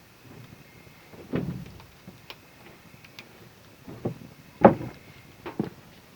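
Irregular knocks and thumps, the loudest about three-quarters of the way through, with a few short sharp clicks between them.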